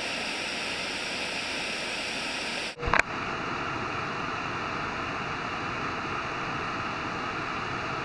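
Steady rush of water from a waterfall. About three seconds in there is a short knock, and after it the sound is slightly duller.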